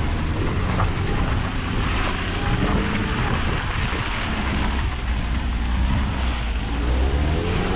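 Car engine running steadily as the car drives slowly over a muddy, rocky dirt road, with tyre and road noise and wind buffeting the microphone.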